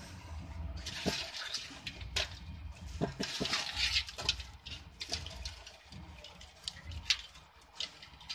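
Shallow water splashing and sloshing as a hand stirs and scoops among live crabs in a tub, with irregular clicks. The splashing is busiest in the first half, and a single sharp click comes about seven seconds in.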